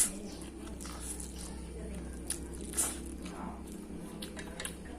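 Eating sounds of fried instant noodles: chewing and mouth noises, with a few short sharp clicks, one louder about three seconds in, over a steady low hum.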